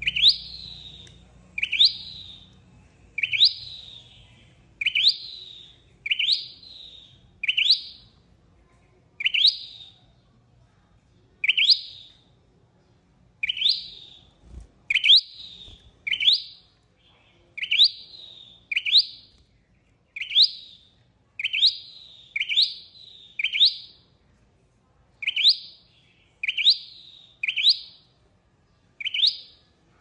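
Caged sâu đầu đỏ (rufous-headed tailorbird) calling: one short, sharp, rising note repeated over and over, about one every second or so, some coming in quick pairs. This is the call used as a lure for trapping.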